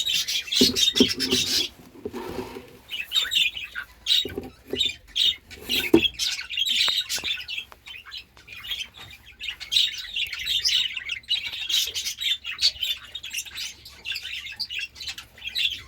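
Budgerigars chattering and chirping continuously in rapid, warbling bursts, with a few knocks in the first six seconds.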